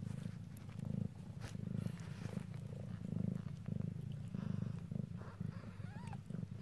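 Domestic mother cat purring steadily while her newborn kittens nurse, the low rumble swelling and easing in slow cycles about once a second.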